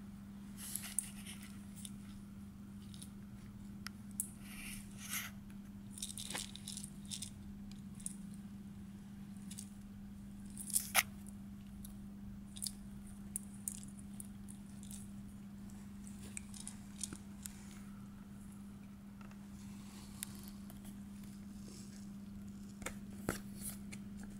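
A kitten batting and tumbling with a plastic ball and a feather toy on a quilted pad: scattered light clicks, taps, rattles and rustles, over a steady low hum.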